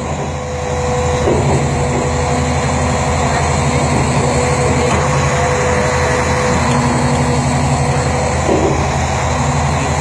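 Large Liebherr crawler bulldozer's diesel engine running steadily at idle, with a higher whine that comes and goes twice.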